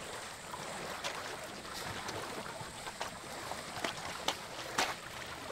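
Elephants moving in a mud wallow: wet mud squelching and sloshing, with a few short sharp clicks and small splashes scattered through.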